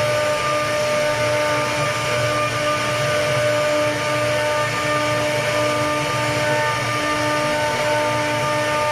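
CNC router spindle running steadily as its bit carves a pattern into a wooden door panel: a steady whine over the rasping noise of the bit cutting wood.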